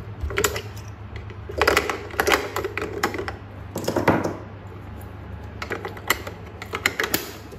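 Irregular plastic clicks and rattles as AA batteries are pried out of the spring contacts of an Omron HEM-7020 blood pressure monitor's battery compartment. Near the end comes a further run of clicks as the plastic battery cover is snapped back on.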